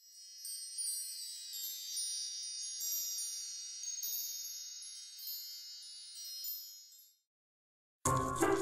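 High, tinkling chimes ringing many overlapping notes, fading in over the first second and dying away about seven seconds in. After a short silence, music starts near the end.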